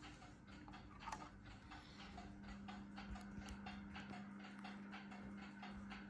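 Casablanca All Seasons ceiling fan running: a steady motor hum with a regular ticking over it, about three ticks a second, and one sharper click about a second in. The fan has bad ball bearings, which the owner puts down to oil having been put into them.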